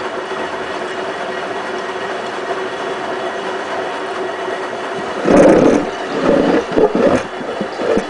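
Hotpoint Ultima WT960 washing machine turning its empty drum on a boil-wash cleaning cycle: a steady motor hum with a faint whine. From about five seconds in come loud, irregular surges of wash water sloshing in the drum.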